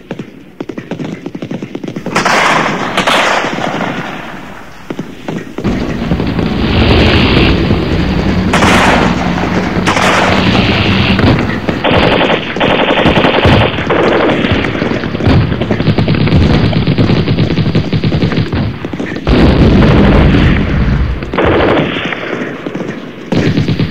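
Machine-gun fire and gunshots making a dense battle soundtrack. It starts about two seconds in, with a long rapid burst in the middle.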